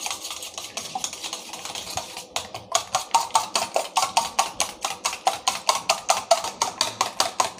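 A fork beating eggs in a stainless steel bowl. It swishes through the liquid for the first two seconds or so, then the tines click rapidly and evenly against the steel, about six strokes a second, stopping suddenly at the end.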